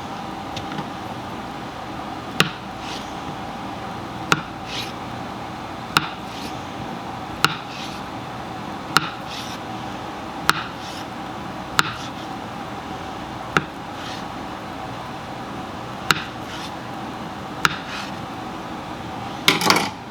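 A series of sharp clicks or knocks, about one every one and a half to two seconds, each followed by a softer short rasp, over a steady hum.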